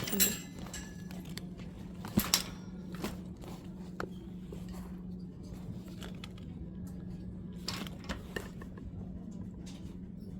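Light metallic clinks and clacks from handled purses and their hardware, a quick pair near the start and another about two seconds in, then a few scattered ones, over a steady low hum of the store.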